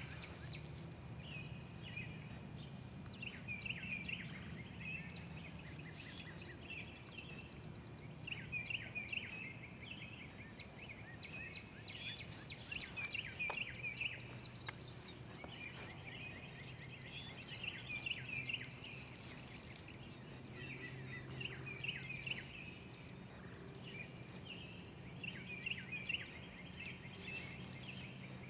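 Songbirds singing, short chirping phrases repeated every couple of seconds, over a low steady background rumble.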